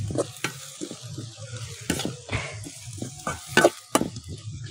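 Metal spatula scraping and knocking irregularly against a metal pan while sliced onions and green chillies are stirred in hot oil, which sizzles. The sharpest clacks come about two seconds in and again near four seconds.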